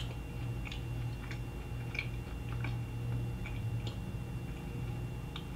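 Faint mouth sounds of a person chewing a piece of chocolate: scattered small soft clicks over a steady low hum.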